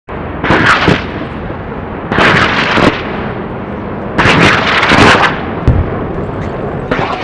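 Shotgun shots: four blasts, about two seconds apart, each carrying on for most of a second over a steady noisy background.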